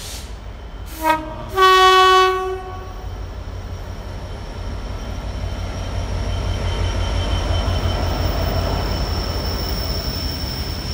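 Freightliner Class 66 diesel locomotive sounding its two-tone horn as it passes: a short lower note about a second in, then a longer, louder, higher note. Then comes the locomotive's rumble and the container wagons' wheels knocking rhythmically over the rail joints, with a thin steady high whine.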